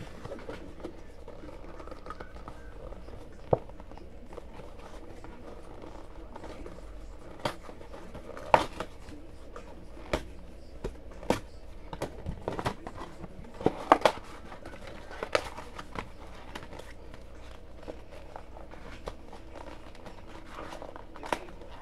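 Scattered sharp taps and clicks with some crinkling, from foil trading-card packs and their cardboard box being handled, mostly in the middle stretch with one more near the end.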